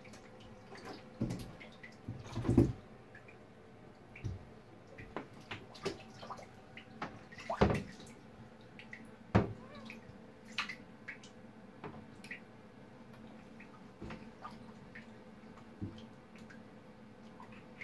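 Java macaque splashing about in a bathtub of water: irregular splashes and drips, the loudest a couple of seconds in and again around eight and nine seconds in.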